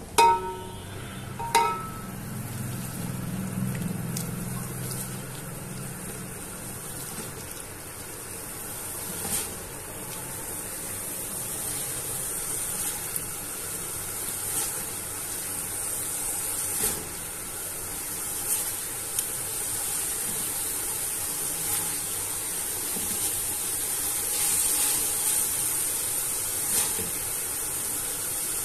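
Diced capsicum and carrots sizzling steadily as they fry in oil in a metal pot, stirred with a spatula that scrapes and knocks against the pot now and then. Two sharp ringing clinks of the spatula on the pot come near the start.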